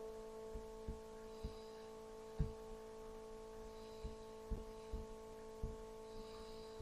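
A faint steady hum with a few overtones, with several soft low thumps at uneven intervals.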